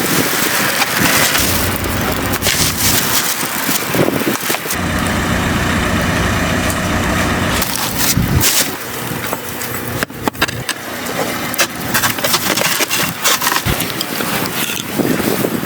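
Strong wind buffeting the microphone, with scattered knocks and clatter of things being handled. A steady engine-like hum runs for a few seconds in the middle.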